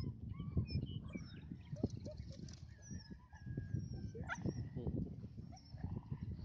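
Young puppies squeaking and whining in short high calls that bend in pitch, with one sharper rising yelp about four seconds in, over low rumbling and knocking noise.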